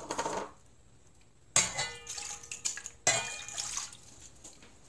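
Liquid being poured into a metal pot at the start. About a second and a half later come two sharp clanks with a short metallic ring, another second and a half apart, as packed brown sugar is knocked out into the pot.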